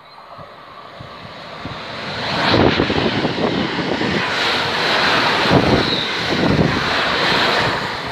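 London Midland Class 350 electric multiple unit passing through the station at speed. A rush of wheel and air noise builds as it approaches, then comes a loud, continuous run of wheels rumbling and clattering over the rails as the carriages go by, easing slightly near the end.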